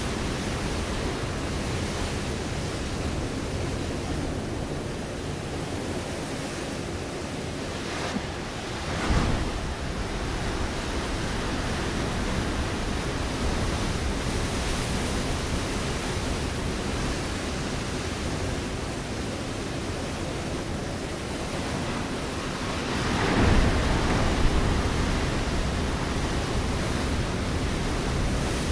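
Ocean waves breaking on a rocky shore: a steady rush of surf, with a short louder crash about nine seconds in and a bigger surge of breaking water about twenty-three seconds in.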